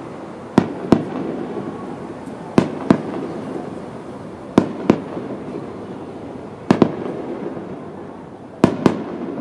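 Aerial firework shells bursting, with sharp bangs coming in pairs about every two seconds and a low rumble in between.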